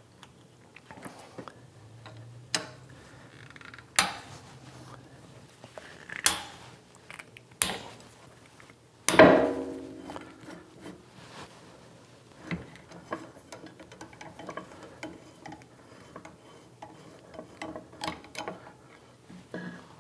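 Hand tools clicking and knocking against a steel plate on a lathe as its screws are loosened with a hex key and the plate is worked free. Sharp metal knocks come every second or two, the loudest about nine seconds in with a brief ring.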